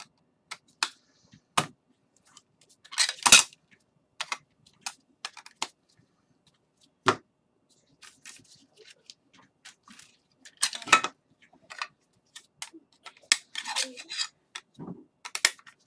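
Scattered sharp clicks and taps of trading cards and hard plastic card holders being handled and set down on a table, with two longer rustling scuffs, about three seconds in and about eleven seconds in.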